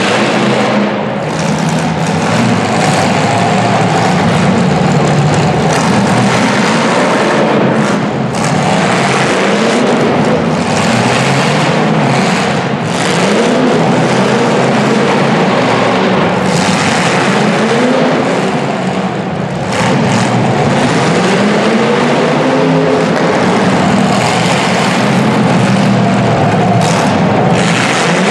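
Several demolition derby cars' engines revving up and down at once, loud and continuous over a rough haze of noise.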